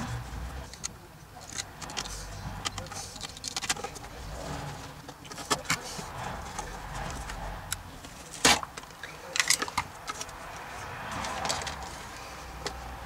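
Ribbed plastic vacuum cleaner hose being cut with a utility knife and handled: scraping, rustling and small clicks, with a sharp knock about eight and a half seconds in and a few more clicks just after.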